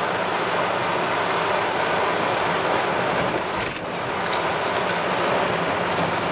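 Heavy rain falling on a moving car's roof and windshield, with tyres running on a wet road, heard from inside the cabin: a steady, even hiss.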